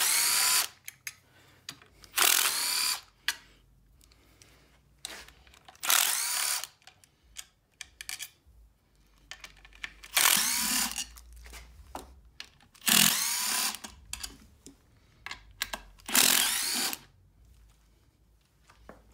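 Bosch cordless driver backing out the 10 mm bolts of a snowmobile engine's recoil housing: six short runs, each whirring up and winding back down, with light clicks of handling between them.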